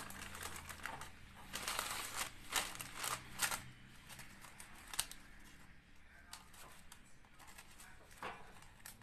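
Parchment paper rustling and crinkling as it is pressed and folded into a metal baking frame, with a single sharp tap about five seconds in.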